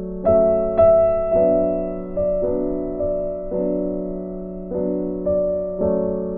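Background music: piano playing slow, sustained chords, a new chord struck about every second.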